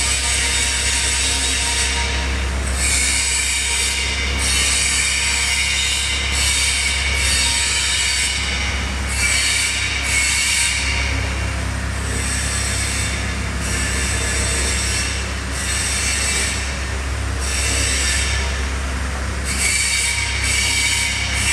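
Wheeled excavator's diesel engine running steadily under load while it digs and loads, with high-pitched squealing from its working arm and hydraulics coming and going in short spells, about a dozen times.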